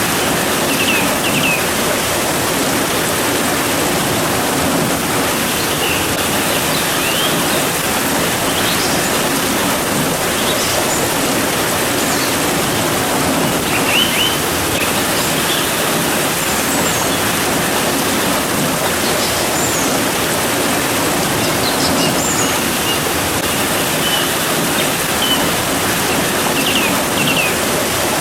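Steady rain, a dense even hiss, with birds chirping in short scattered calls throughout.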